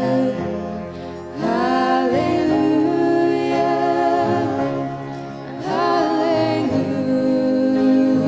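Two women singing a Christmas worship song with two acoustic guitars. Two sung phrases each swoop up into a long held note, the first about a second and a half in and the second near six seconds.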